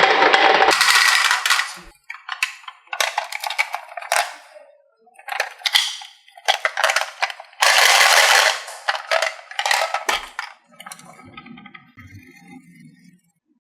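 Marbles rolling and clattering down a wooden HABA marble run, in a string of rattling bursts of clicks and knocks, with a fainter low rolling rumble near the end.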